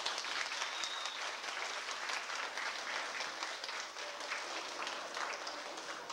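Audience applauding, many hands clapping together, easing off slightly near the end.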